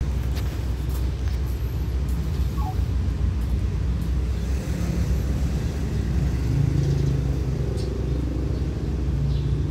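Steady low rumble with the hum of an engine, growing a little stronger about two thirds of the way in.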